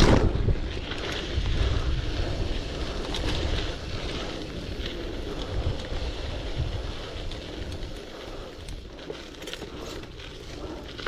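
Wind buffeting the microphone over the rumble of a bicycle rolling on dirt, with scattered small clicks and rattles; loudest at the start, then easing off.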